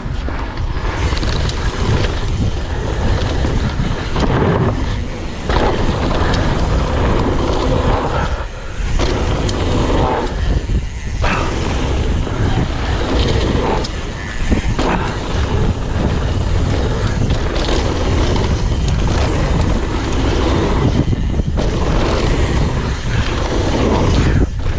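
Wind rushing over the microphone together with the rolling tyres and rattling of a mountain bike descending a bumpy dirt trail, with frequent short knocks from bumps.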